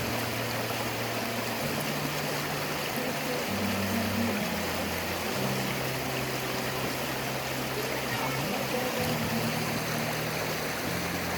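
River water rushing steadily, with soft background music of low held notes that change pitch every second or two.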